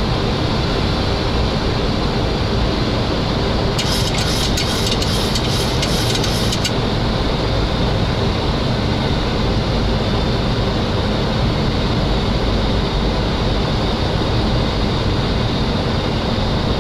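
Steady rushing noise inside a Boeing 737 flight deck on final approach, from airflow and the engines, with the jet in landing configuration (gear down, flaps 30). From about four seconds in, a crackling high hiss joins it for just under three seconds.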